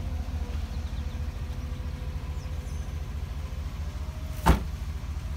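Power liftgate of a 2015 GMC Yukon Denali closing: a faint steady hum while it swings down, then a single heavy thunk as it latches shut about four and a half seconds in. A steady low rumble runs underneath.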